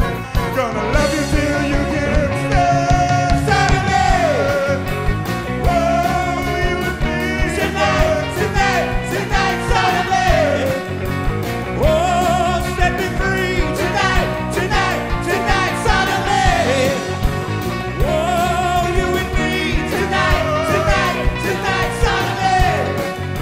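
A live rock band, with electric guitars, bass and drums, playing a song while a group of singers sing over it.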